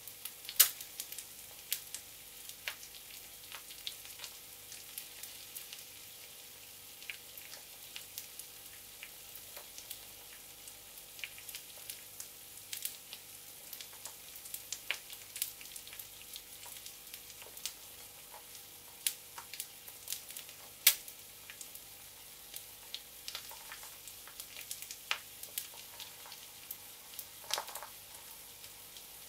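Egg frying in oil in a small cast-iron skillet: a steady high sizzle with scattered sharp pops and crackles as fat spatters, two louder pops about half a second in and about two-thirds of the way through.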